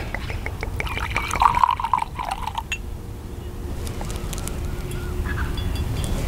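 Whisky poured from a glass bottle into a small tumbler, splashing and glugging for about two and a half seconds, then a few faint clicks. A steady low rumble of wind on the microphone runs underneath.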